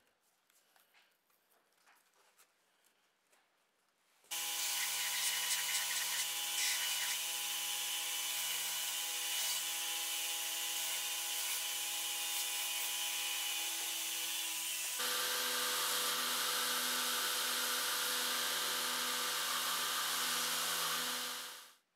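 Belt grinder running steadily as the edge of a leather sheath is sanded against the belt. It starts suddenly about four seconds in, shifts to a different tone about two-thirds of the way through, and cuts off just before the end. Before it starts there are only faint clicks of hand work on the leather.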